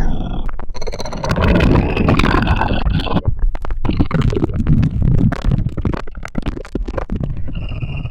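Designed alien monster sound effect: a long, rough, gurgling growl broken by rapid clicks and short gaps.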